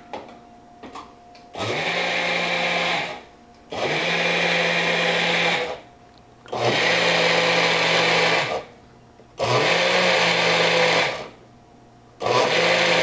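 Magic Bullet personal blender run in short pulses of about two seconds each, five times, its motor spinning up quickly at the start of each pulse. It is whipping heavy cream and chocolate syrup toward a mousse, and the fifth pulse starts near the end.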